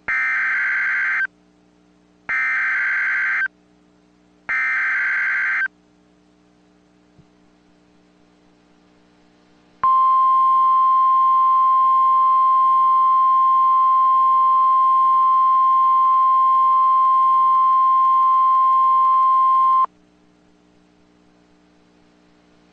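NOAA Weather Radio Emergency Alert System signal: three bursts of SAME digital header data, each about a second long with about a second between them. After a pause of about four seconds comes a steady 1050 Hz warning alarm tone, held for about ten seconds before it cuts off suddenly. Together they announce a tornado warning, here issued as a test.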